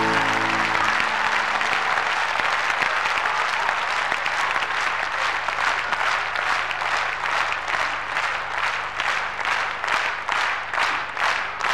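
Concert hall audience applauding at the end of a song, as the last held notes of the band die away in the first second. About halfway through, the applause turns into rhythmic clapping in unison, about two claps a second.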